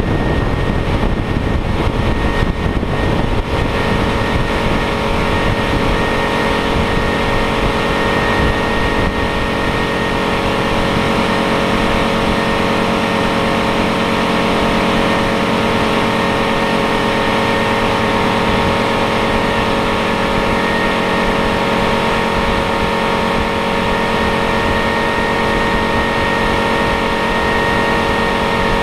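Motorboat engine running steadily at cruising speed, with a steady drone and whine, mixed with wind and water rushing past the hull.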